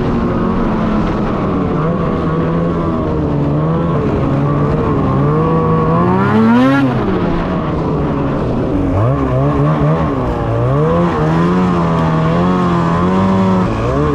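Ski-Doo Summit X 800R E-TEC two-stroke snowmobile engine under way, its pitch wandering up and down with the throttle. It climbs sharply to a high peak about halfway through, then drops back.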